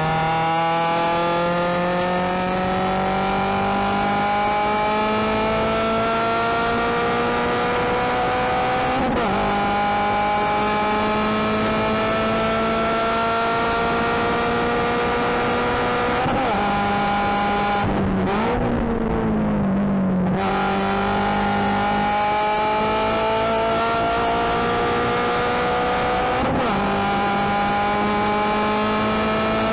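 Subaru BRZ's 2.0-litre flat-four racing engine heard from inside the cabin under hard acceleration, its pitch climbing steadily through the gears. It drops at an upshift about nine seconds in and again near the end. Just past halfway the driver lifts for a couple of seconds and the pitch falls, then it pulls again.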